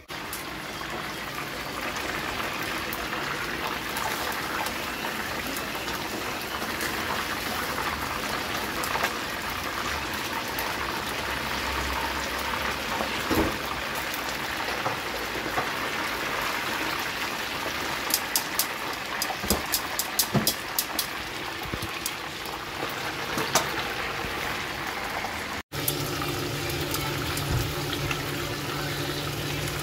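Hot oil sizzling steadily as fish deep-fries in a frying pan, with a run of light metallic clicks of tongs against the pan a little past the middle. After a short break the sizzle goes on from yam frying in a small saucepan of oil, now over a steady low hum.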